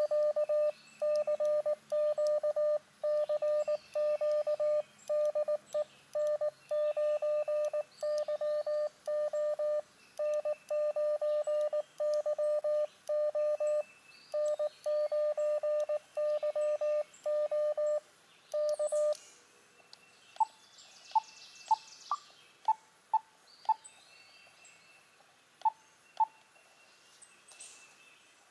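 Morse code sidetone from an Elecraft KX2 transceiver: a single steady beep keyed on and off in dots and dashes as a CW CQ call is sent. The keying stops about two-thirds of the way in, and a string of short faint pips at differing pitches follows.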